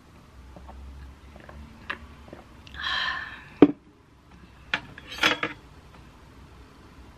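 Metal fork clinking against ceramic plates while eating: a handful of sharp clicks, the loudest about three and a half seconds in and a quick cluster a second and a half later, with a short rustling hiss just before the loudest click.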